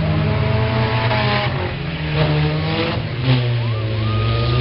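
Demolition derby cars racing around a figure-8 track, their engines revving up and easing off in turn. A short high-pitched squeal comes near the end.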